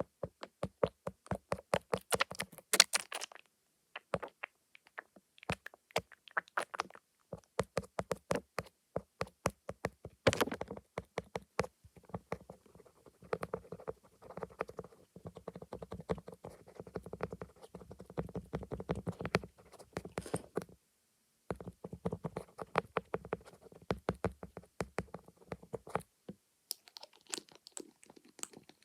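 Fast, aggressive ASMR tapping on the camera lens: quick runs of sharp taps and knocks, several a second, with denser rubbing stretches in the middle and a short pause about two-thirds of the way in.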